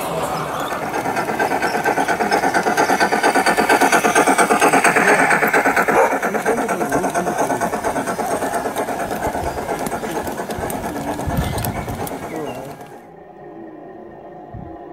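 G-scale garden model train running close by on its track: a fast, steady rattling clatter of wheels and drive gearing, loudest in the first half. About 13 seconds in the sound drops away sharply to a quieter, duller background.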